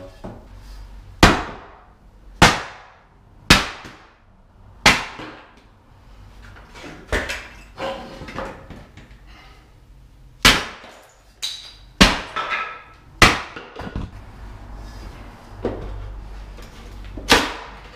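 A homemade burke bar, an axe head welded to a length of steel box section, striking and prying apart a small wooden crate: about eight loud, sharp knocks at uneven intervals, each with a short ringing tail. Smaller knocks, wood splitting and loose boards clattering on a wooden floor fall between them.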